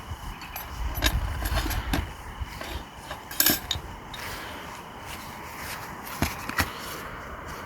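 Scattered knocks and clinks of hard objects being handled, the loudest about three and a half seconds in. Low wind rumble on the microphone runs through the first two seconds.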